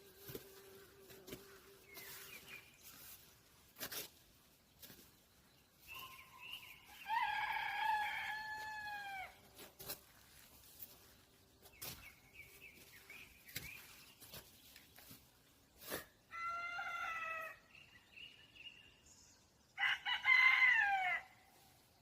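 Rooster crowing three times: a long crow about seven seconds in, then two shorter crows near the end, the last the loudest. Faint small-bird chirps come between the crows.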